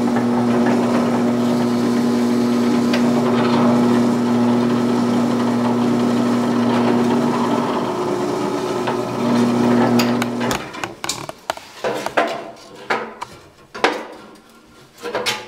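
Electric drill motor running at a steady hum while drilling out holes in a wooden longbow's takedown socket, switched off about ten seconds in. Then come scattered knocks and clicks of wood and tools being handled.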